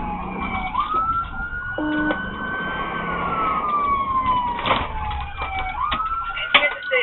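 Police siren on a slow wail: it rises about a second in, holds, sinks slowly over several seconds, then rises again near the end. It is heard over the patrol vehicle's engine and road noise in a pursuit.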